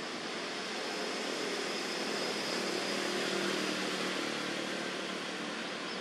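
Distant engine hum over a steady hiss. It swells a little about halfway through, then eases off.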